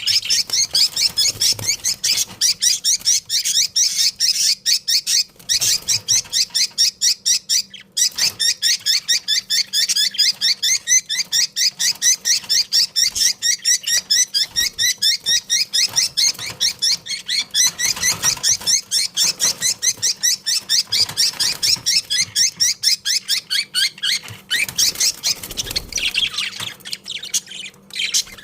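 A flock of budgerigars chattering and chirping, a dense, continuous stream of rapid high chirps with hardly a pause.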